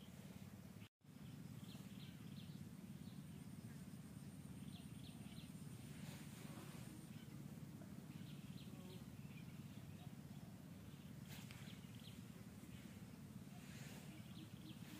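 Faint outdoor forest ambience: a steady low rumble with scattered faint short bird chirps, and a brief cut to silence about a second in.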